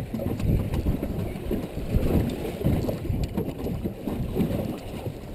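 Wind rumbling and buffeting the microphone over the wash of choppy sea water around a small open boat.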